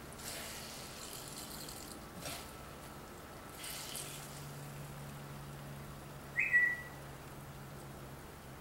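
Vinegar trickling and splashing in a few short hisses as it is squeezed from a wet cloth through a metal strainer into a glass measuring cup. About six and a half seconds in comes one short high squeak that drops slightly in pitch, the loudest sound here, over a low steady hum.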